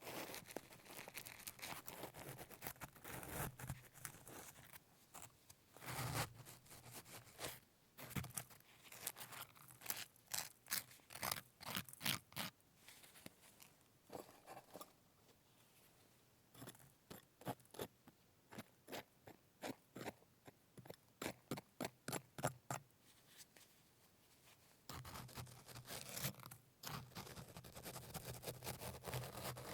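Hardened salt crust being cracked and scraped off baked pork: close-up runs of crisp crunches and scratchy scrapes in bursts, with short pauses between them.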